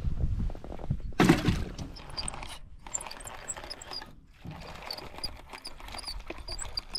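A brief loud rush about a second in, then a casting reel being cranked, its gears ticking, as line is reeled in.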